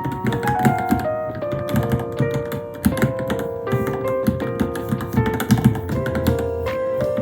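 Background music with a piano-like melody, over quick, uneven clicking of typing on a Varmilo Minilo keyboard.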